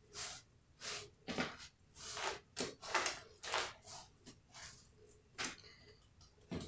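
Hands rubbing dry seasoning into a raw salmon fillet on a cutting board: a run of faint, short rubbing strokes, roughly two a second.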